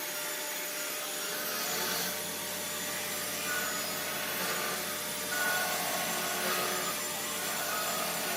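Steady whir of a woodworking power tool working wood, with a low hum that comes in about one and a half seconds in.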